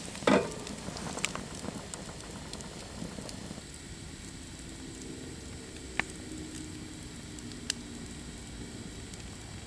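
A metal pot clanks down onto the steel fire-pit grill, then a wood campfire crackles beneath it, with sharp pops about six and about eight seconds in.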